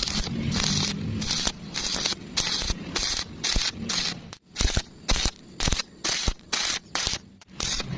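Welding arc crackling and hissing in short bursts, about two a second, each starting and stopping sharply.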